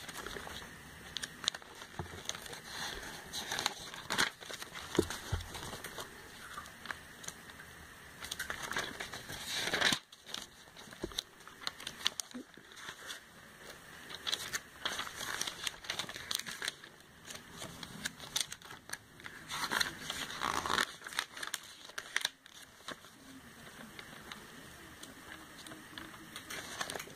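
Pages of a glossy sales catalogue being riffled and turned by hand: a run of quick paper swishes and flaps, with louder page turns about ten and twenty seconds in.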